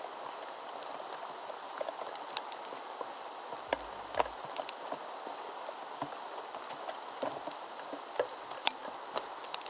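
Steady rain falling on jungle foliage, with scattered drops ticking close by. A brief low thump comes about four seconds in.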